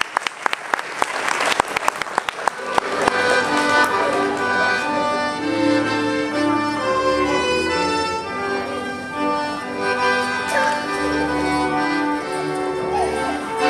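Audience applause dies away, then Polish folk dance music starts about three seconds in and plays on with held, layered notes.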